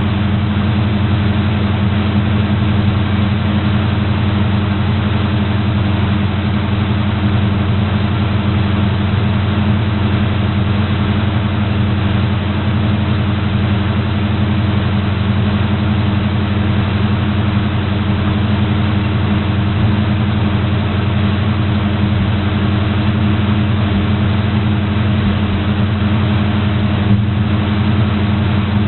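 1984 GMC Camper Special's engine idling steadily through Dynomax Turbo mufflers on a dual exhaust with 2¼-inch pipes and an H-pipe, heard from under the rear of the truck. The engine is warming up after a cold start and settling into its normal idle.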